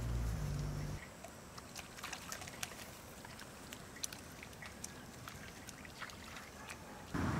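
Japanese macaque wading through shallow pond water: soft, irregular small splashes and drips. A low steady hum cuts off about a second in, and a louder rushing noise starts abruptly near the end.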